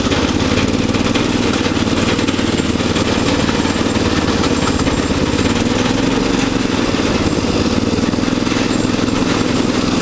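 Riding lawnmower's small engine running steadily at a high idle while the mower is driven, which the owner means to fix, with its added gearbox transmission running smoothly.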